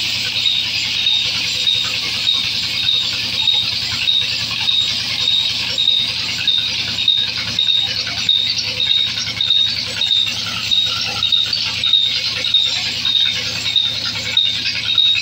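Large vertical band saw ripping a log lengthwise: a steady high hiss of the blade cutting wood, with a shrill squeal that pulses about twice a second over a low hum.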